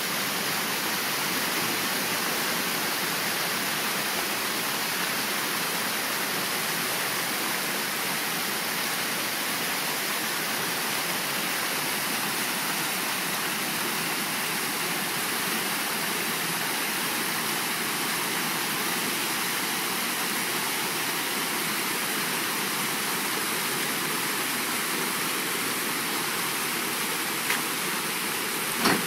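Creek water rushing steadily over small rock ledges and cascades. A single short click comes near the end.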